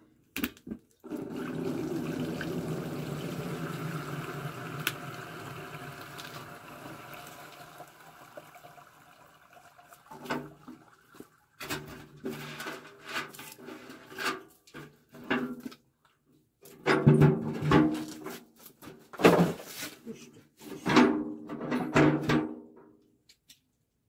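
Boiled pine-cone water poured through a strainer, a steady rush of liquid that tapers off over several seconds. It is followed by a run of short, pitched vocal cries, loudest near the end.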